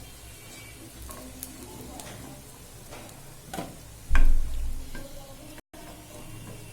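Oats-and-egg fritters sizzling in frying oil, with a spatula scraping and clacking against the pan a handful of times as the fried pieces are lifted out. A loud low thump about four seconds in, and the sound cuts out for a moment near the end.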